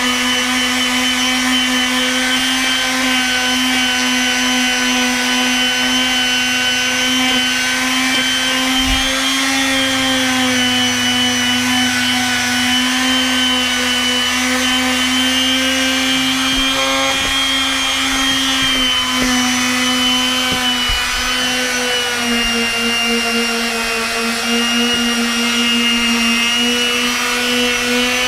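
Makita random orbit palm sander running steadily while sanding deck boards, a constant motor whine with a faint rubbing of sandpaper on wood. The pitch dips slightly about two-thirds of the way through and then holds.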